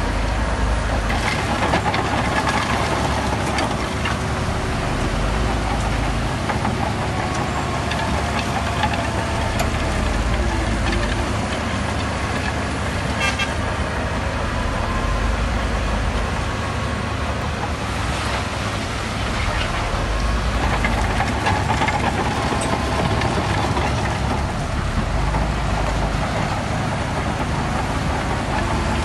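Diesel engines of heavy earthmoving machines running steadily under work, with a wavering higher tone coming and going over the engine noise.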